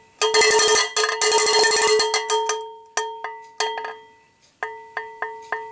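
Cowbell being struck, each hit ringing out and fading: a few hits, a fast rattling run of strikes about a second in, then single strokes spaced roughly half a second apart.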